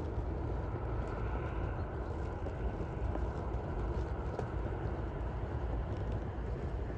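Steady low rumble and hiss of a passenger train in motion, with a few faint clicks.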